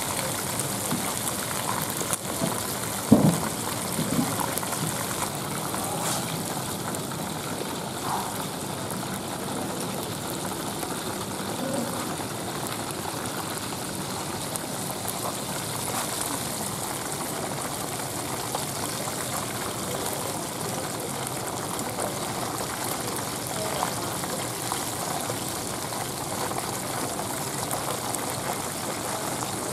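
Whole parrotfish deep-frying in a wok of hot oil, the oil bubbling and sizzling steadily, with a brief louder sound about three seconds in.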